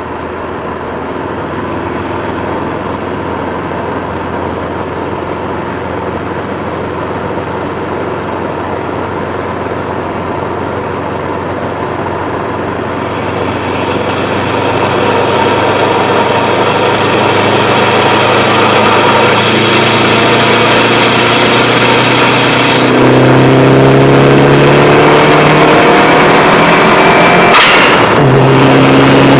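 Subaru Impreza WRX's turbocharged flat-four getting steadily louder as the car accelerates, its revs climbing through a gear in the last few seconds. Near the end there is a sharp, brief burst of turbo flutter as the throttle is lifted, then the engine pulls again at lower revs.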